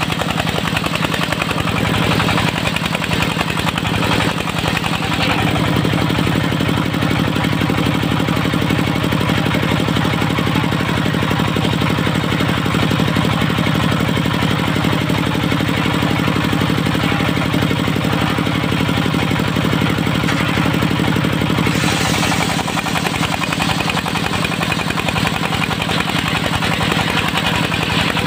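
Dongfeng diesel engine running steadily, driving a circular sawmill blade. The blade is ripping through a log for the first few seconds and starts cutting again about 22 seconds in, adding a hissing, rasping saw noise over the engine; between the cuts the engine runs alone.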